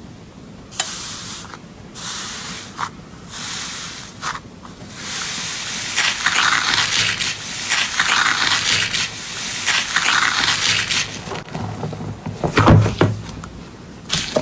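Slime being squeezed and pressed by hand, a crackling, popping squish made of many small clicks. It grows louder about five seconds in, with a few heavier pops near the end.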